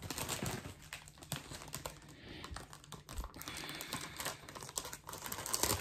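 Scissors snipping at a clear plastic packaging sleeve: a run of small clicks with the plastic crinkling.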